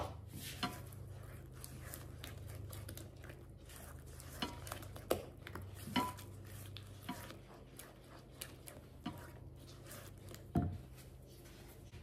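Silicone spatula stirring thick cobbler crust batter in a ceramic mixing bowl, with scattered light knocks and taps of the spatula against the bowl, the strongest near the end.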